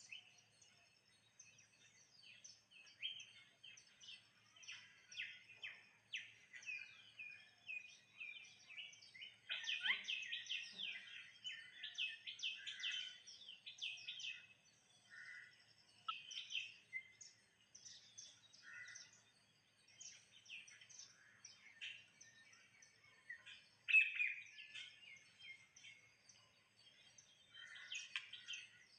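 Small birds chirping: a busy string of short, quick high calls with pauses between, louder bursts of calling about ten seconds in and again around twenty-four seconds.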